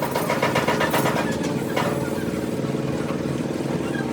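A motor running steadily, with a quick run of sharp clicks or taps in the first second and a half.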